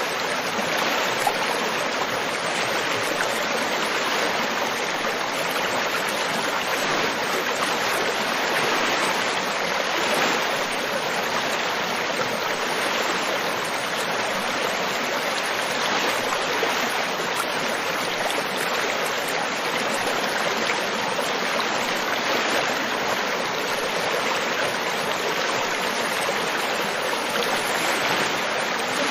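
River water flowing steadily over stones, a continuous rushing and babbling with no pauses.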